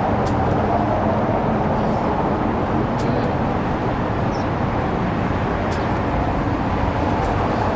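Steady outdoor city background noise, a constant rumble and hiss with no clear voices.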